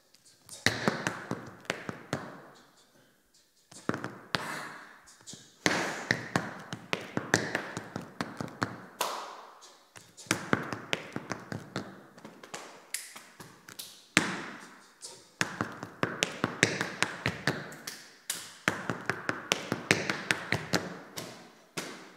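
Tap shoes' metal taps striking the floor in a solo tap dance without music: fast runs of sharp clicks and heel drops in phrases of a few seconds, broken by short pauses.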